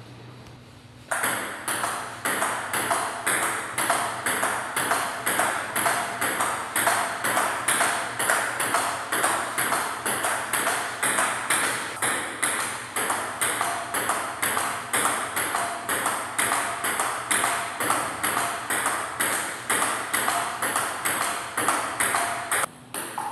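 Table tennis rally: a ping-pong ball clicking off the paddles and bouncing on the table in a steady rhythm of about two to three hits a second. It starts about a second in and breaks off briefly near the end.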